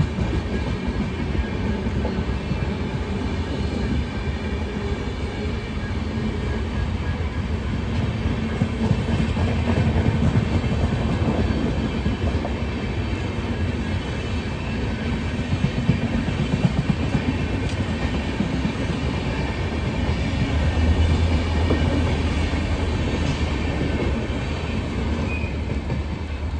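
WDP-4 locomotive's 16-cylinder EMD 710G3B diesel engine running steadily with a deep hum, swelling a little about a third of the way in and again near the end.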